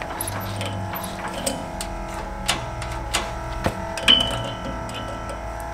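Background guitar music with a handful of irregular sharp clicks and knocks.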